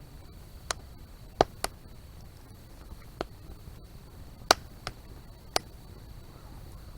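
Wood fire crackling, with about seven sharp, irregularly spaced pops over a low steady background.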